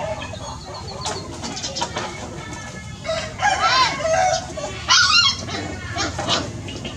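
Chickens clucking and calling, with two loud calls of rising and falling pitch about three and five seconds in.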